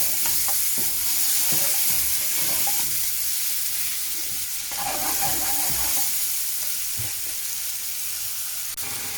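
Onion and garlic sizzling in hot oil in a pan, stirred with a spoon that knocks and scrapes against it now and then.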